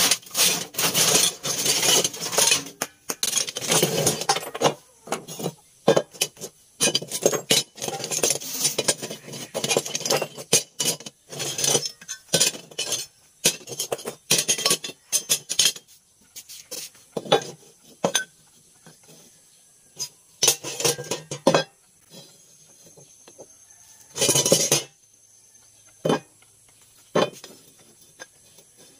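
Rusty steel brake shoes, roller chain and bearings clanking and clinking against each other and the wooden bench as they are tipped out and sorted. There is dense clatter for roughly the first half, then scattered single clanks and one short rattle near the end as the brake shoes are set down one by one.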